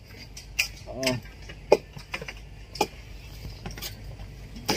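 Scattered clinks and knocks from manual construction work, about half a dozen spread irregularly over a few seconds, with a brief distant voice about a second in.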